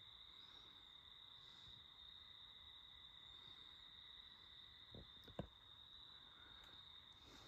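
Near silence with a faint, steady, high-pitched cricket trill. A single soft knock sounds about five seconds in.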